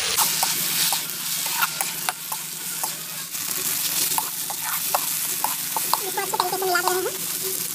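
Onions and ginger-garlic-chili paste sizzling in hot mustard oil in a metal kadhai. A metal spatula stirs them with frequent clicks and scrapes against the pan.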